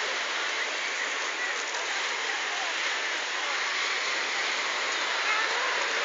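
Busy beach ambience: a steady wash of small waves on a pebble shore and the blended chatter of a large crowd of bathers, with faint distant shouts and calls here and there.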